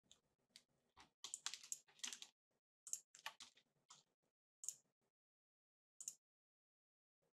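Faint, scattered clicks of a computer mouse and keyboard, with a quick run of clicks about a second and a half in, then single clicks every second or so.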